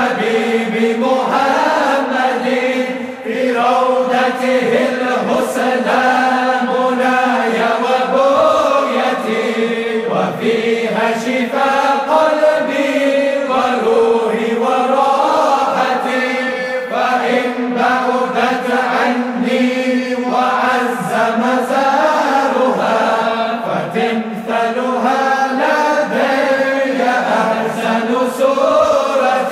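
Islamic zikr chanting: a sung devotional line that bends and ornaments over a steady held drone tone.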